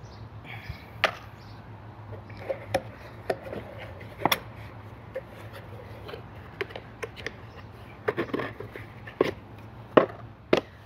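Small objects being handled and put down by hand: irregular clicks, taps and light knocks, the sharpest about four seconds in and near the end.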